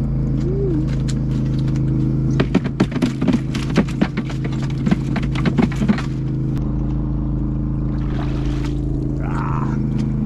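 Rapid clattering and knocks for about three and a half seconds, starting a couple of seconds in, as a gigged fish goes into an ice-filled cooler and thrashes against the ice and plastic. Under it runs the steady hum of a boat motor.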